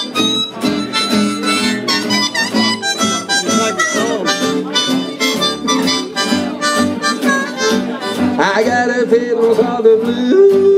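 Harmonica playing a blues solo over strummed acoustic guitars and an upright bass. Near the end the harmonica drops out and singing comes in.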